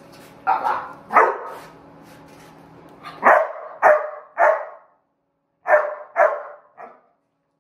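Seven-month-old Belgian Malinois barking: about eight short, sharp barks in three bunches.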